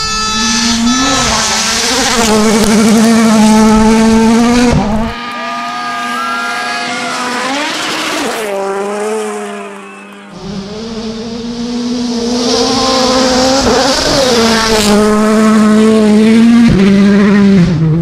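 Rally cars at speed on a gravel stage: engines at high revs, the pitch climbing and dropping sharply as the drivers shift and lift, with gravel spraying off the tyres. Several passes follow one another with abrupt changes about five and ten seconds in and near the end.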